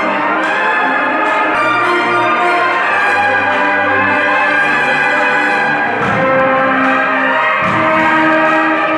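Brass band playing, with long held chords from trumpets and low brass.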